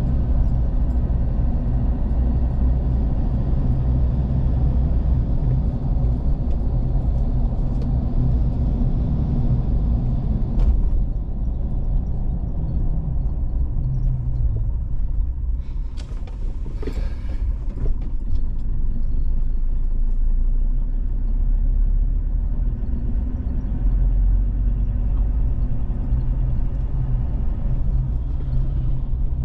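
A car travelling along a road, with a steady low engine and road rumble. The rumble eases off through the middle, with a brief higher noise, then builds back up.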